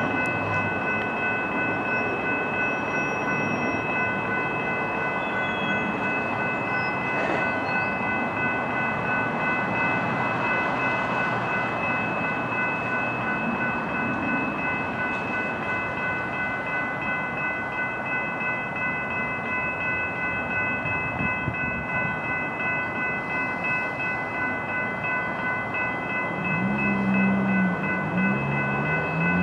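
Diesel locomotives of a loaded coal train approaching at low speed: a steady engine and rail rumble with a constant high-pitched whine over it. Near the end a louder, wavering low tone joins in.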